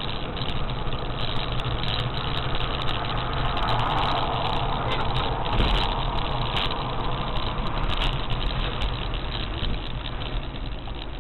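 Steady engine and road noise heard inside a moving car: a low hum under an even rushing noise that swells a little midway, with a few faint ticks.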